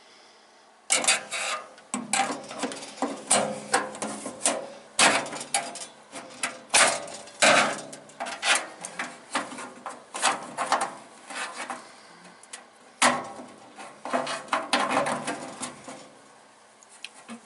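Hand tools knocking, clinking and scraping against a metal toolbox as it is taken apart. The sharp knocks are irregular, several a second; they start about a second in, with a brief lull about two thirds of the way through.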